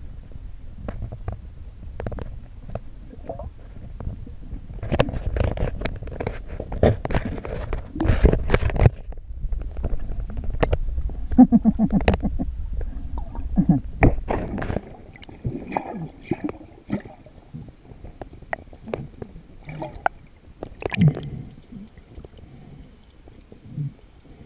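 Muffled underwater sound picked up by a camera in a waterproof housing: a low rumble of moving water with gurgling bubbles and many short clicks and knocks. The rumble drops away about two-thirds of the way through, leaving scattered clicks.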